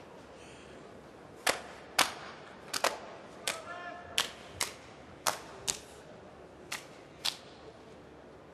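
About ten sharp, loud slaps, several in quick pairs: a sumo wrestler's hands smacking his own bare body as he psyches himself up between crouches. Partway through, a short voice call is heard.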